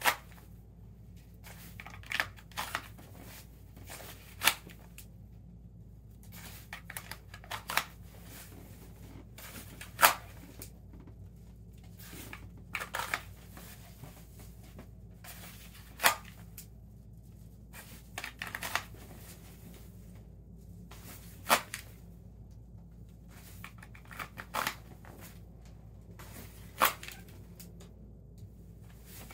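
Practice draws from an appendix light-bearing Kydex holster. Sharp clicks and snaps come as the pistol, with its weapon light mounted, is pulled out of and pushed back into the holster, with shirt and clothing rustling between. There are about a dozen sharp strokes, a couple of seconds apart.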